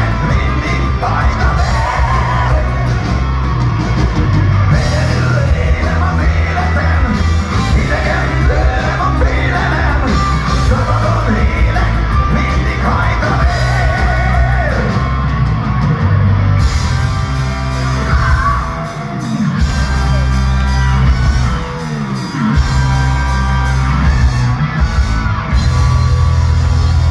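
Live heavy metal band playing loud in a hall, with a singer over electric guitars and drums, recorded from within the audience. The music dips briefly twice past the middle.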